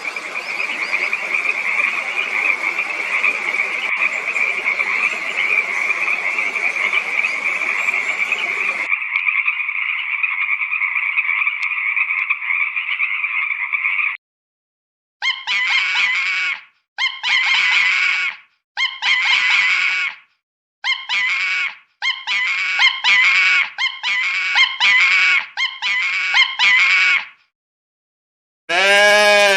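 Frogs calling: a steady trilling chorus that changes to a second, narrower chorus about nine seconds in, then from about fifteen seconds a run of about nine separate croaks, each a rapid pulsed rattle lasting about a second. Right at the end a short pitched animal call begins.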